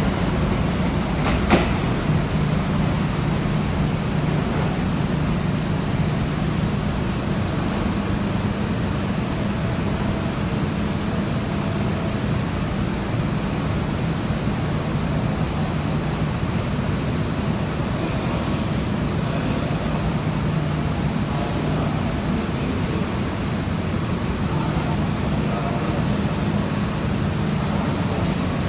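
Steady hum and noise of a Kintetsu train standing at the platform, its onboard equipment running, with one sharp click about a second and a half in.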